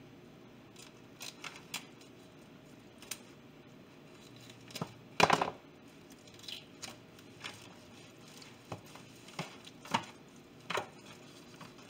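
Scattered short crinkles and rustles from a plastic oven baking bag and foil roasting pan as hands work on a raw turkey, the loudest about five seconds in.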